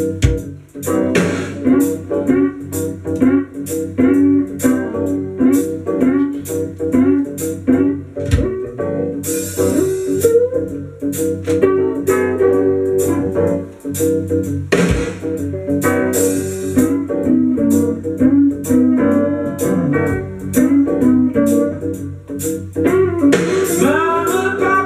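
A rock 'n' roll record playing, with guitar over a steady beat; singing comes in near the end.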